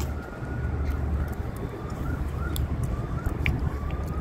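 Wind buffeting the microphone as an uneven low rumble, with a faint thin tone that wavers in pitch and a few light clicks.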